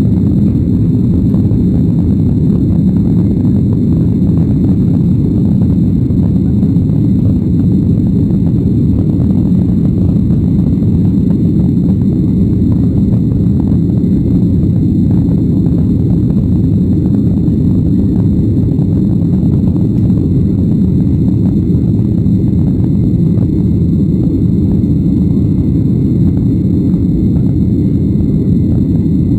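Steady low roar of a jet airliner's engines and rushing air, heard from inside the cabin during the climb after takeoff.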